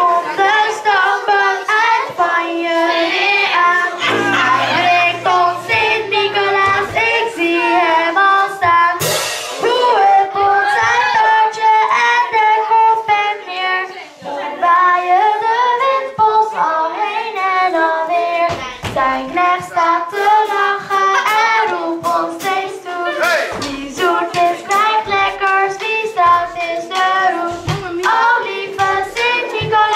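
A young girl singing a song solo into a handheld microphone, her voice wavering and held on long notes.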